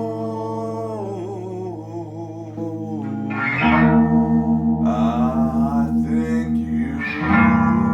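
Guitar playing sustained chords through effects, with a wavering melody line over them; from about three and a half seconds in the sound pulses rapidly and evenly, about five times a second, with a new chord struck near the end.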